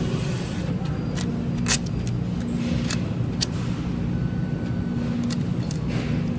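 Steady low machine hum with a few sharp clicks and knocks over it.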